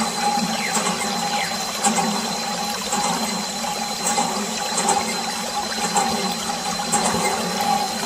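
Thin jet of water from a mini water pump splashing onto plastic toy trucks and wet concrete, a steady spatter, with the small pump motor humming under it.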